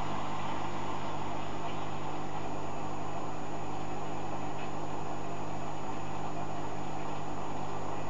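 Hoover Dynamic Next front-loading washing machine running a delicates wash: a steady low hum with an even hiss over it.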